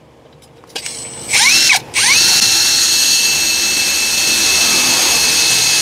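Workfix cordless drill driving a self-drilling screw into a 5 mm steel bar. The motor whirs up briefly and stops about a second and a half in, then starts again and runs at a steady high pitch as the screw bores into the steel.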